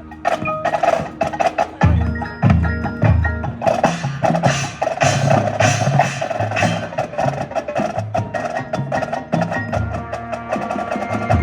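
Marching show band playing: wood block and mallet percussion such as marimba, xylophone and bells over drums, with low, heavy notes coming in about two seconds in and the fuller band joining at around four seconds.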